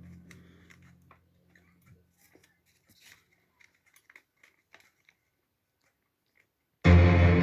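Background music fading out, then faint scattered clicks and taps. Loud music starts abruptly near the end.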